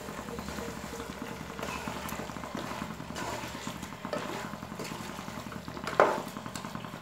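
Wooden spatula stirring and scraping thick chicken masala in a nonstick pot, with the masala sizzling on the heat. A louder knock of the spatula against the pot comes about six seconds in.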